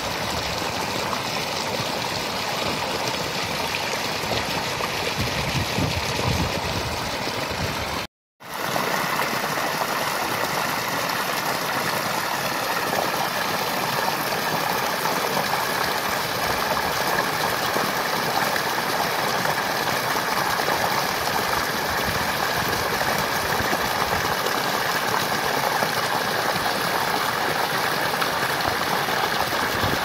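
A strong stream of water gushing and splashing onto the ground in a steady rush, then running off into a ditch. The sound cuts out for a moment about eight seconds in and comes back.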